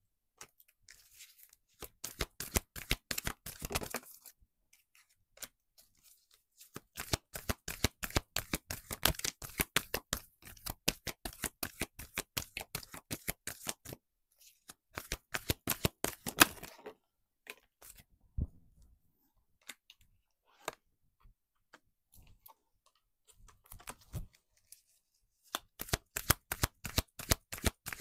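Tarot cards being shuffled by hand, in several runs of rapid flicking clicks with short pauses between.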